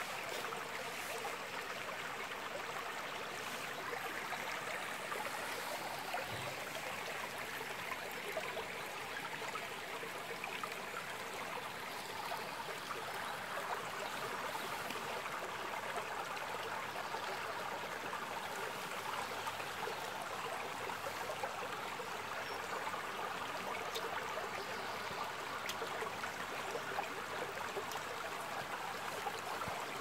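Shallow creek flowing steadily over stones and pebbles, an even, unbroken babble of water.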